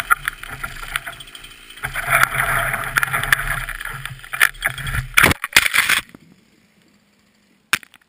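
Chainsaw running low while the hinge wood of a felled pine cracks and the tree tips, then a cluster of sharp loud knocks as the trunk crashes down about five to six seconds in; after that it goes nearly quiet, with one more short knock near the end.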